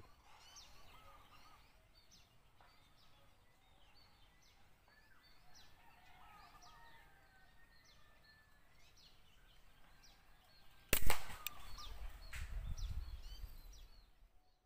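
Small birds chirping in the background. About eleven seconds in there is a single sharp air rifle shot, followed by a couple of seconds of low rumbling noise.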